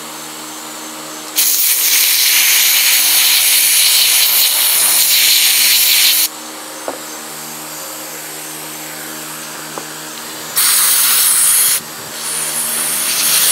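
Aerosol spray can hissing into a fuel tank's shutoff valve to clean out a valve that barely lets fuel through: one long burst of about five seconds, then two short ones near the end.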